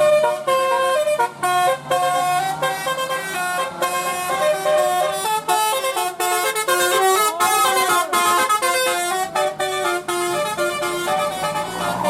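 Bus 'telolet' musical horn playing a tune of quick stepped notes, with a rising-and-falling sweep partway through.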